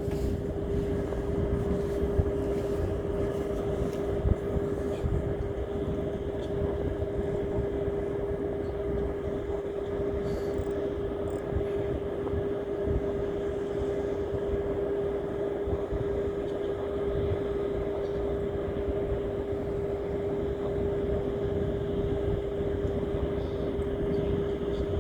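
A motor running steadily: an unchanging hum over a low rumble, with a few faint clicks in the first few seconds.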